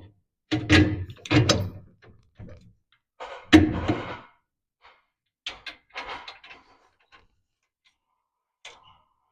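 Metal suspension parts and tools knocking and clunking as the front end of a hot rod is assembled: a quick run of knocks in the first two seconds, the loudest clunk about three and a half seconds in, then lighter taps and rattles.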